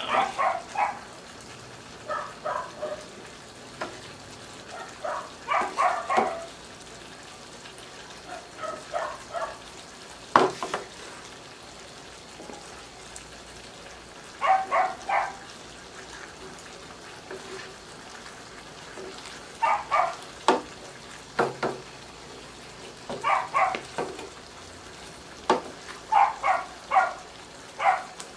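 Sweet-and-sour sauce sizzling in a wok on a gas burner while a wooden spatula stirs and scoops it in short runs of three or four strokes every few seconds. There is one sharp knock about ten seconds in.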